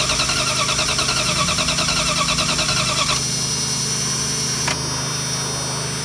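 Starter cranking the 5.2-litre V8 of a 1997 Dodge Ram B2500 in an even rhythm during a compression test, on a nearly dead battery. The cranking stops about three seconds in, leaving a steady hum.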